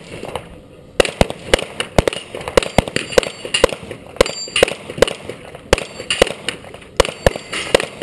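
Gunfire: a string of sharp shots at uneven spacing, about two or three a second, starting about a second in after a short pause.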